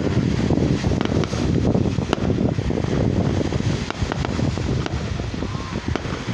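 Wind rumbling on the microphone, with a few sharp cracks from distant fireworks bursting, the clearest about two seconds in.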